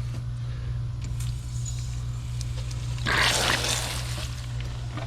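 Outdoor hose spigot opened on a house whose water supply has been shut off, giving one brief gush and sputter of water and air about three seconds in as the remaining pressure in the house plumbing is released.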